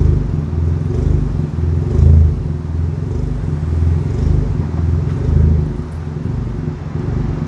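Chevy Cruze engine running steadily, with a low drone that swells about once a second.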